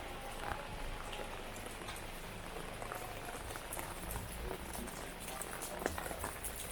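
Heavy rain falling steadily, with many scattered drops ticking close by.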